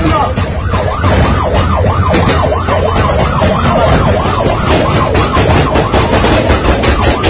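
Emergency vehicle siren in a fast rising-and-falling yelp, about three cycles a second, loud, with many sharp cracks over it, thickest in the second half.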